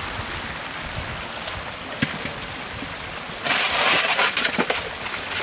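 Shallow floodwater trickling and running steadily. About two-thirds of the way in comes a louder stretch of splashing and sloshing in the water that lasts about a second and a half.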